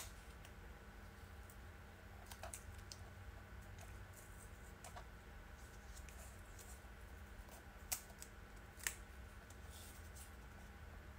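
Faint rustling and light clicks of a small piece of paper being handled by hand, with two sharper clicks about a second apart late on.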